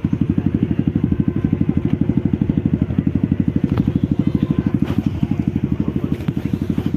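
A small engine running steadily at low revs, a fast, even putter of about twelve beats a second.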